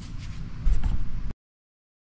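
Rustling and a few low thumps of handling noise, then the sound cuts to dead silence a little over a second in.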